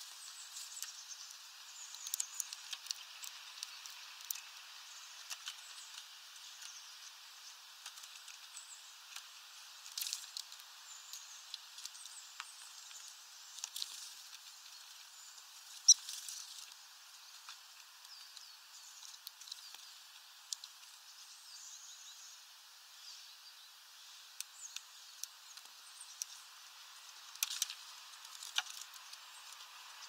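Great tits at a seed feeder making irregular sharp taps and clicks, pecking at sunflower seeds and landing and scrabbling on the tray and perches, over a steady faint hiss. One tap about halfway through is much louder than the rest, and a quick run of taps comes near the end.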